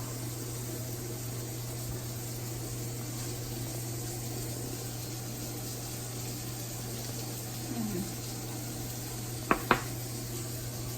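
Steady kitchen hiss over a constant low hum while breakfast cooks, with two sharp clicks close together near the end.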